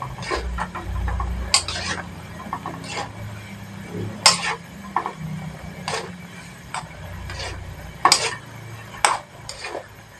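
Metal spoon stirring instant noodles in a wok of boiling water, with sharp clinks of the spoon against the pan about once a second over a low steady hum.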